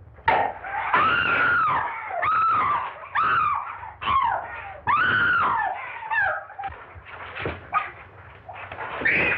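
Women screaming as they fight: a run of about five shrill, rising-and-falling shrieks in quick succession, then quieter cries and a few knocks of the struggle.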